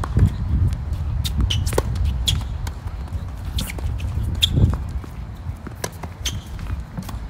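Tennis rally on a hard court: sharp, irregularly spaced pops of the ball off racket strings and bouncing on the court, over a steady low rumble.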